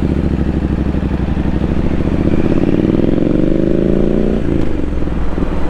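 The 2017 Triumph Street Scrambler 900's parallel-twin engine pulls under acceleration, its pitch rising for about three seconds. The pitch drops at a gear change a little over four seconds in, and the engine then runs on steadily.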